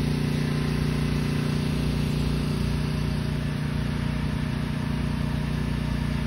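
A vehicle engine idling steadily, a constant low hum with no change in speed.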